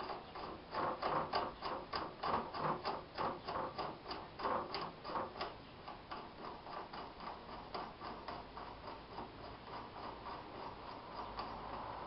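Headset lock ring spun by hand down a freshly die-cut 1-inch bicycle steer tube, clicking lightly on the threads several times a second; the clicks are louder over the first half and fainter after that. The ring running on freely is the test of the new threads.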